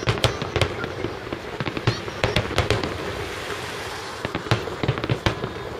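Aerial fireworks shells bursting overhead: many sharp bangs in quick clusters with short lulls between, over a continuous crackle.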